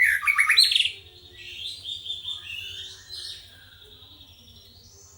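A songbird singing: a loud burst of rapid, varied whistled notes in the first second, then quieter warbling phrases that fade out a little after three seconds in.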